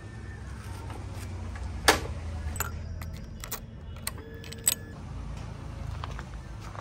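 Keys jangling and a scatter of sharp clicks and knocks as a key is worked into a Hero motorcycle's ignition and turned, over a steady low rumble; the loudest knock comes about two seconds in.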